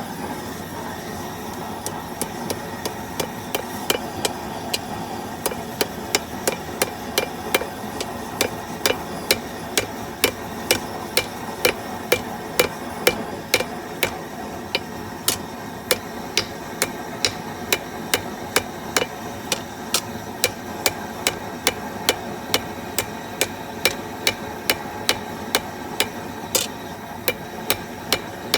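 Blacksmith's hammer striking hot steel in a steady run of blows, about two a second, each with a short metallic ring. Under the blows is the steady rush of a propane gas forge burner.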